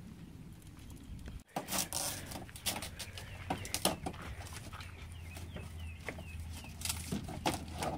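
Irregular knocks, clatter and rustling of gear and straps being handled in a canoe. A string of short, quick chirps sounds in the middle stretch.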